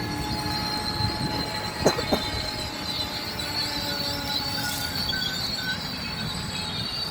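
Amtrak passenger train cars rolling past with a low rumble and a steady high-pitched wheel squeal. Two sharp clanks come close together about two seconds in.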